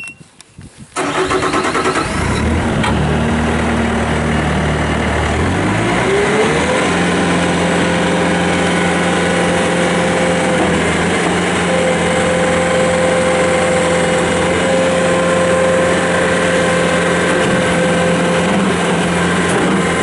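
Bobcat S550 skid steer's four-cylinder turbo diesel starting about a second in and idling low. It throttles up with a rising pitch around six seconds in, then runs steadily at high revs.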